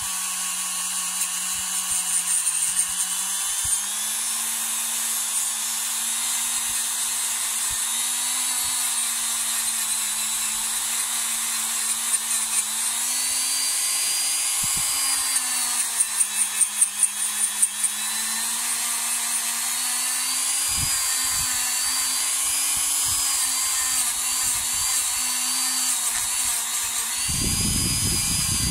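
Dremel rotary tool with a small abrasive wheel grinding oxidation off a bare diecast metal model car body: a steady high motor whine whose pitch dips and recovers as the wheel is pressed against the metal. A brief spell of rapid clicking comes about two-thirds of the way through.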